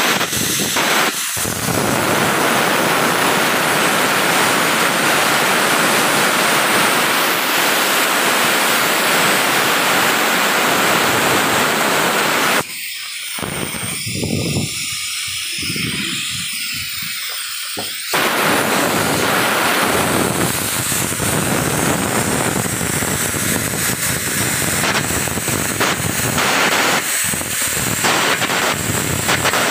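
Electric arc welding on steel plate: the arc gives off a loud, steady noise. It drops out for about five seconds in the middle, leaving only a fainter high hiss, then starts up again.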